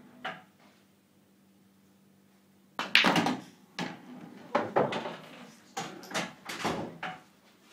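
Pool balls knocking on a pool table: a loud sharp knock of a shot about three seconds in, then several more knocks over the next four seconds as the balls strike one another.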